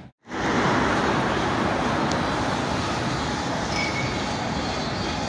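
Steady street traffic noise, an even rush of passing vehicles. The sound drops out for a split second at the very start.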